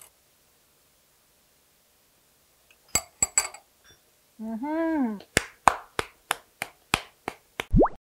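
A few sharp clicks, then a woman's drawn-out 'mmm' that rises and falls in pitch as she savours a shot of soju. A run of about three sharp clicks a second follows and ends in a quick downward sweep.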